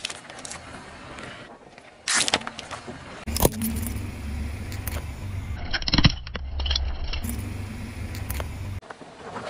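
Car tyre slowly rolling onto small objects and crushing them, over the low rumble of the car's engine. There are sharp crunches about two and three and a half seconds in, and a loud pop about six seconds in.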